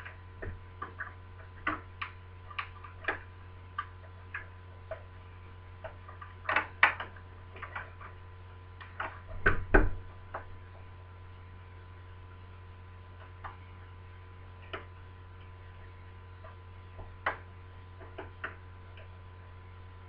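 Lever deadlock being picked: light, irregular metallic clicks and taps of the pick on the levers inside the lock, with louder bunches of clicks about six to seven and nine to ten seconds in, over a steady low hum.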